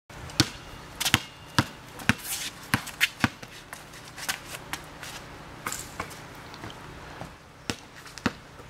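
Basketball bouncing on an outdoor court, about two sharp slaps a second, with an uneven rhythm and a few doubled hits.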